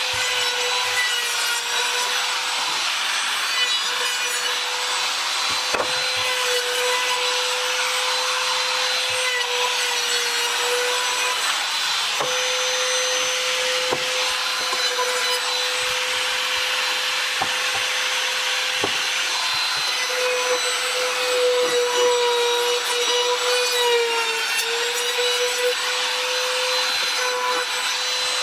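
Compact trim router running steadily with a high whine, its bit rasping as it cuts wood along a board's edge, with a few light knocks.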